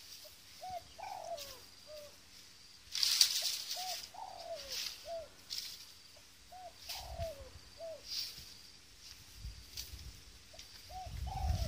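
A dove cooing over and over, a phrase of short notes followed by a longer falling note, repeating every couple of seconds. A brief rustle comes about three seconds in, and low rumbling near the end.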